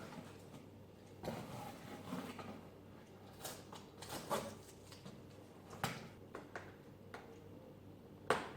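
Objects being handled at close range: scattered light knocks and clicks, with a brief stretch of rustling about a second in and a sharper knock near the end.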